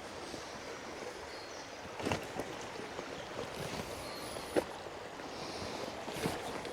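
River water rushing steadily over rocks, with a few sharp knocks or clicks on top, the loudest about two-thirds of the way through.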